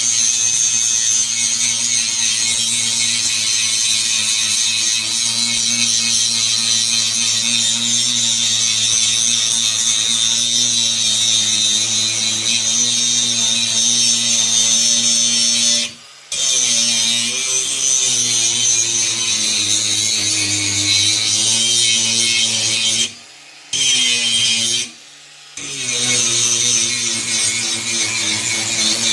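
Angle grinder grinding the edge of an iron workpiece to bevel it for welding: a steady, loud grinding whine over the motor's hum. It cuts out briefly three times in the second half.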